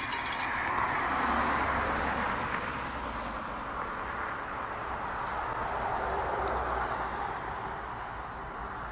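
Road traffic passing on the street: a broad tyre-and-engine rush that swells and fades, loudest about a second and a half in and again around six seconds. A short high electronic beep sounds at the very start.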